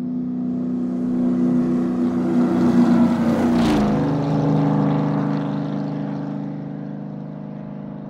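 A car's engine driving past: a steady hum that grows louder on the approach, drops in pitch about three and a half seconds in as it passes with a brief whoosh, then carries on lower and fades as it moves away. This is the Doppler shift, higher pitch coming toward the listener and lower going away.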